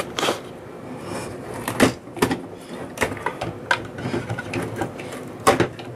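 Irregular clicks, scrapes and knocks of plastic and metal parts handled by hand as a gasket is pulled off and the internal circuit-board assembly is worked out of the case of a DAP Technologies MicroFlex PC1000+ handheld computer. The loudest knocks come about half a second in, a little before 2 s and about 5.5 s in.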